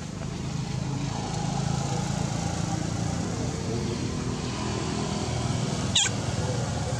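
A motor vehicle engine running steadily, growing louder over the first couple of seconds and then holding. About six seconds in there is a single short, sharp high squeak.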